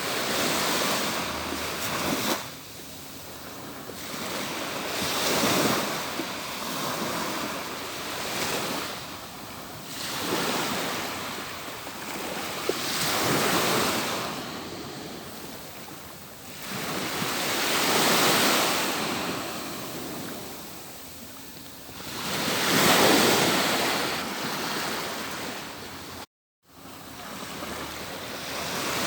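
Atlantic Ocean waves breaking and washing up a beach, a new surge of surf swelling and fading every four to five seconds. The sound cuts out completely for a split second near the end.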